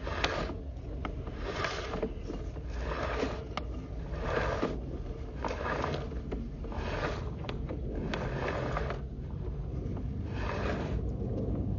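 Sewer inspection camera's push cable being pulled back out of the line in repeated strokes: a scraping swish roughly once a second with small clicks, over a steady low rumble.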